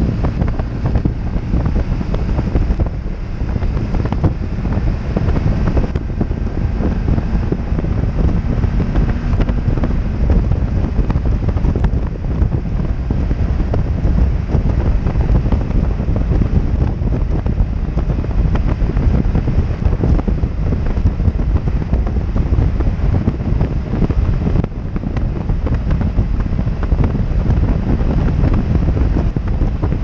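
Steady wind noise buffeting the helmet-camera microphone on a BMW R 1200 GS Adventure cruising at highway speed, with the bike's flat-twin engine running underneath.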